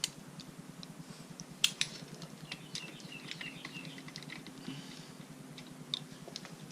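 Small irregular metal clicks and ticks of hand tools and bolts as the stator cover bolts on a Honda CBR600RR are run in, with one louder click about one and a half seconds in. A faint steady hum sits underneath.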